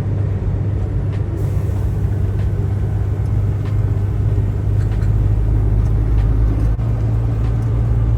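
Tractor-trailer's diesel engine running steadily under way, a low drone whose note steps up slightly near the end.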